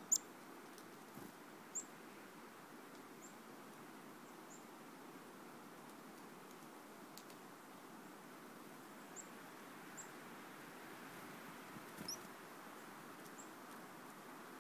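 Black-capped chickadees giving short, high call notes, one every second or two with a gap in the middle, over a faint steady background hiss.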